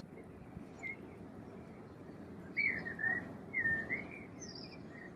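Bird chirping: a quick run of short, warbling whistled notes about two and a half seconds in, then a single higher note, over a steady outdoor background hiss.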